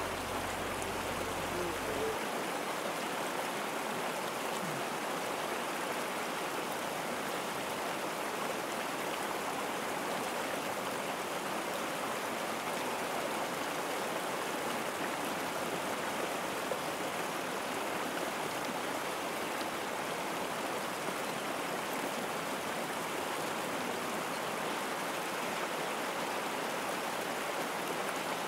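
Shallow creek rushing steadily over a gravel and stone bed.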